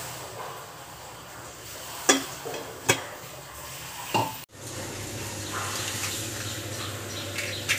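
Water boiling in a stainless steel pot on a gas stove, with three sharp metallic clinks of the pot lid, the last ringing briefly. About halfway through the sound cuts to a steadier low hum with a few faint clinks as the covered pot heats.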